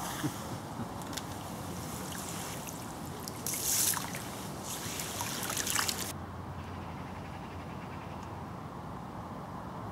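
River water running steadily, with two louder bursts of hissing noise about three and a half and five seconds in.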